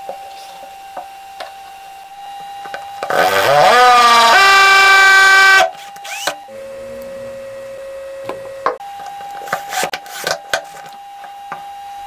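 Cordless drill motor spinning up with a rising whine and running at full speed, drilling into a wooden board for about a second and a half, then stopping suddenly. A few light knocks follow near the end.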